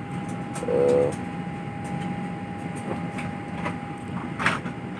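Steady rumble of an airliner cabin with a steady high whine running through it. A short voice-like sound comes about a second in, and there are a few faint clicks, the clearest near the end.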